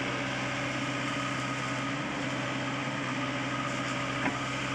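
Sany SY55C mini excavator's diesel engine running at a steady pitch, with a single sharp knock about four seconds in.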